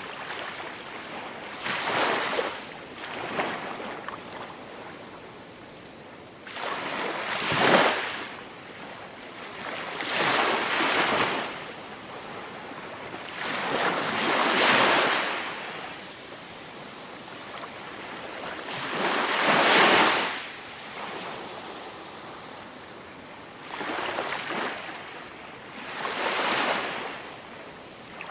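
Ocean waves breaking and washing up a beach, each wave a swell of noise that builds and fades, one every few seconds.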